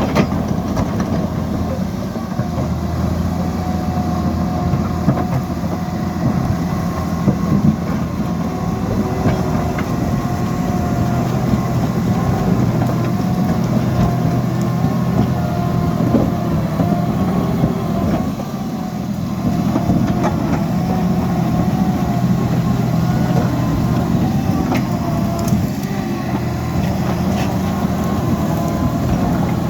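Liebherr PR 754 crawler dozer's diesel engine running steadily under load, with scattered metallic clanks from the machine.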